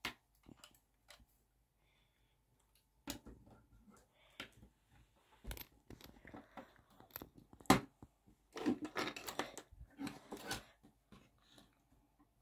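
Plastic Lego bricks clicking and rattling as a Lego model is handled and its parts moved by hand: scattered sharp clicks, then a busier stretch of rattling and rubbing about two-thirds of the way through.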